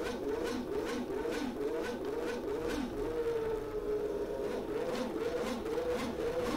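Renault Espace F1's V10 Formula One engine running and being revved up and down, its pitch rising and falling about every half second, held steadier for a moment about three seconds in.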